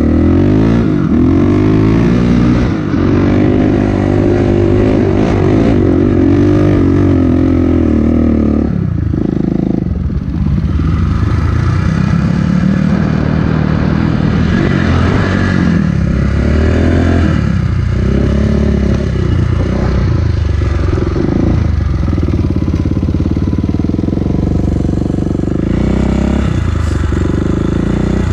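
Dirt bike engine running hard under load, its pitch rising and falling repeatedly as the throttle is opened and rolled off.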